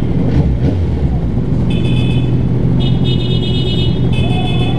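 Motorcycle engine idling steadily. From about two seconds in, a high-pitched tone sounds in several stretches over it.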